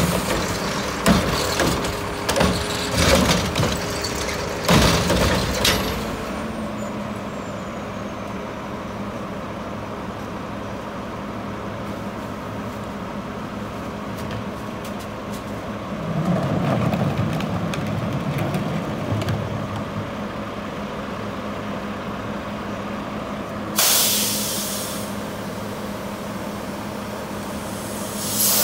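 Mack LEU front-loader garbage truck with a grabber-equipped carry can: a series of metal clanks and bangs for the first few seconds as a cart is tipped and shaken out into the can, then the diesel engine idling steadily. The engine rumble swells for a few seconds in the middle, and a sharp air-brake hiss lasting about a second comes near the end.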